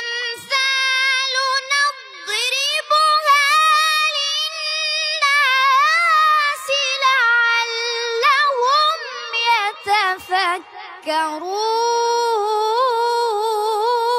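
A boy reciting the Quran in melodic tajweed style, drawing out long held notes that waver and turn in ornaments, with brief breaths near the end.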